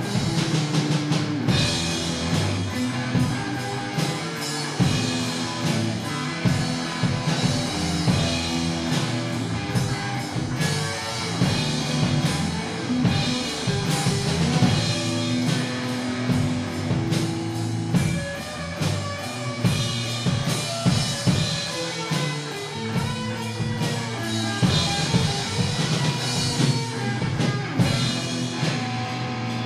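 A rock band playing live: a drum kit keeps a steady beat under electric guitars.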